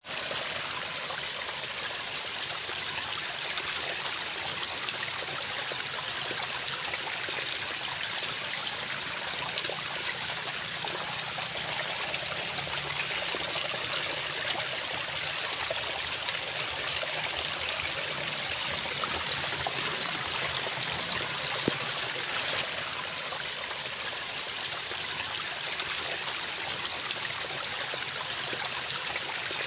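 Waterfall: a steady rush of falling and splashing water.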